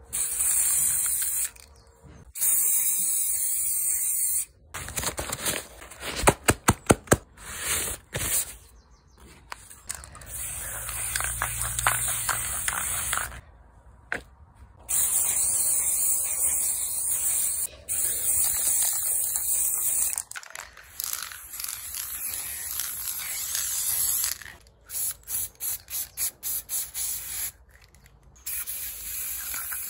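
Aerosol spray paint cans hissing in repeated long bursts that start and stop sharply, with two runs of quick short spurts.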